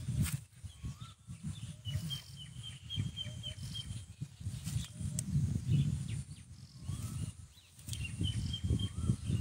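A bird calls twice, each call a run of quick high notes at one steady pitch: the first lasts about two seconds, the second about a second near the end. Under it runs a low, uneven rumble.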